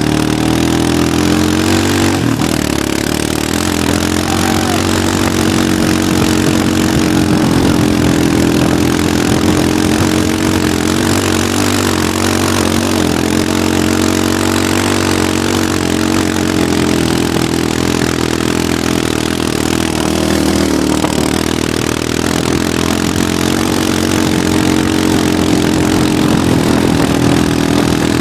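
Honda TRX700 quad's engine running steadily as it tows a boat through tall grass, its pitch rising and falling with the throttle, with a constant rush of wind and grass noise on the microphone.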